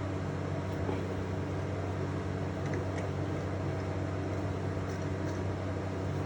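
Steady mechanical hum, like a motor or fan running, with a few faint small ticks.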